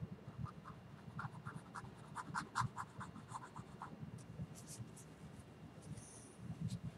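Thin paintbrush stroking and dabbing oil paint onto a stretched canvas: a quick run of short, faint scratchy strokes, then a few more about four to five seconds in.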